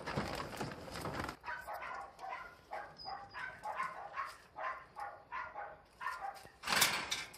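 Dog whining in a run of short yips, about two a second, after a scuffling noise at the start, with a loud rough burst near the end.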